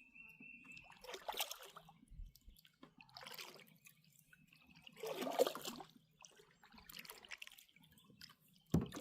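Water splashing and dripping around a kayak, rising and falling in four soft swells about two seconds apart.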